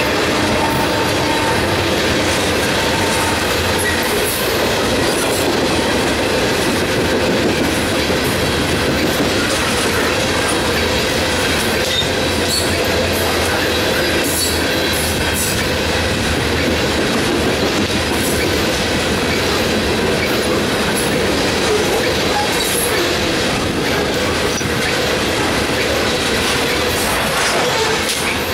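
Coal train of steel hopper cars rolling through a road crossing: a steady, loud rumble and clatter of wheels on the rails, with a faint steady squeal in the first few seconds.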